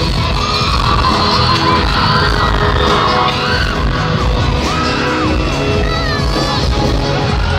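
Live arena concert music with heavy bass, and fans close to the microphone whooping and screaming in short rising-and-falling cries about once a second.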